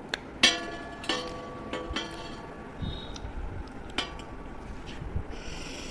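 A small metal plate clinking against the brass plate under it as it is handled: a few sharp, ringing clinks, the loudest about half a second in, then others near one, two and four seconds.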